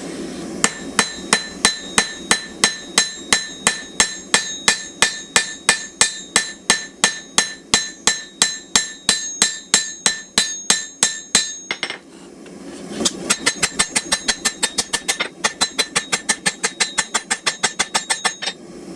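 Hand hammer striking hot steel on an anvil, drawing down and tapering the end of a knife blade: steady blows about three a second with a ringing note, a short pause about two-thirds in, then quicker, lighter blows about five a second.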